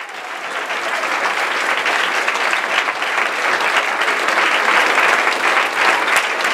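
Audience of many people applauding, a dense patter of clapping that fades in over the first second or so and then holds steady.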